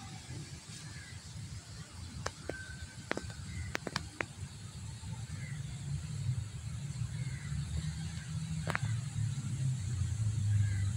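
Low engine rumble that grows louder toward the end, with a few sharp clicks in the first half.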